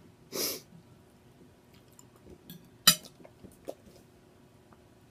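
A short, sharp breath about half a second in, then faint mouth clicks, with one loud, sharp click near three seconds in.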